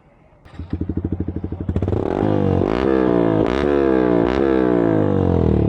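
Yamaha R15's 155 cc single-cylinder engine through a short Akrapovič full-system exhaust: it starts idling about half a second in, then is revved in several throttle blips, the pitch climbing and dropping back sharply each time before settling near the end.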